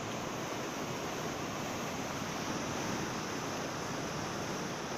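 Storm-driven sea surf, a steady rushing wash of waves with some wind.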